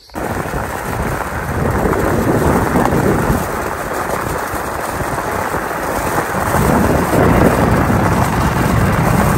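Wind rushing over the microphone and tyres rumbling on an unpaved road while riding an electric bike at speed: a loud, steady rush with no motor tone heard.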